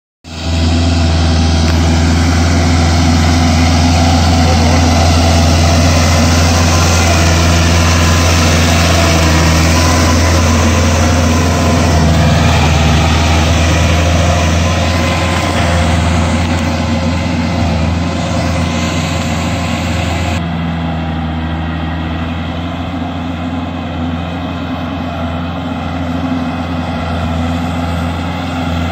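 Kubota L4508 tractor's diesel engine running steadily under load as it drives a rotavator through a flooded paddy field. It grows a little quieter in the last third as the tractor moves away.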